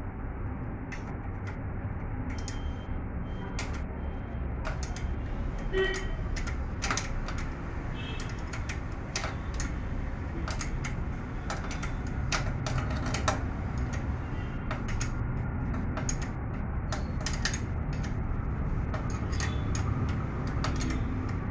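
Metal spanner clicking against a bolt and the steel frame at the base of a portable generator as the bolt is turned: irregular light metallic clicks, sometimes several a second, over a steady low rumble.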